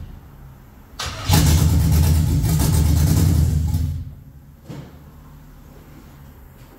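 Custom GMC pickup's engine on open headers cranking about a second in, catching and running loud for under three seconds, then dying. It is not yet holding an idle.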